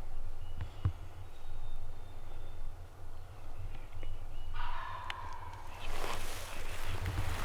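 A wild turkey gobbler gobbling about two-thirds of the way in, over a steady low rumble.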